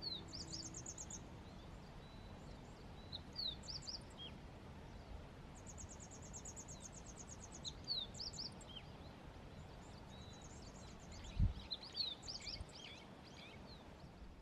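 Wild birds singing: repeated quick high trills and short, sharp falling whistled notes over a steady background hiss, with a single low thump about eleven seconds in.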